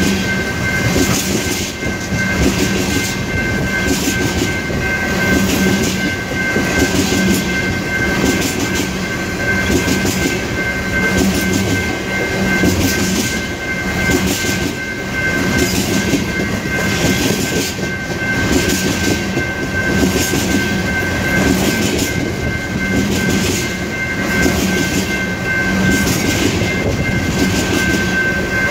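Empty coal cars of a Union Pacific freight train rolling steadily past, their wheels clacking over the rail joints in a regular rhythm, with a steady high-pitched ring over the rumble.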